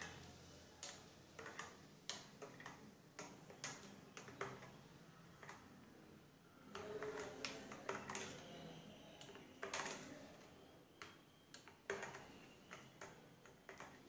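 Steel spoon stirring a thick watermelon milk drink in a glass mug, faintly clinking and tapping against the glass at irregular intervals, a few times a second.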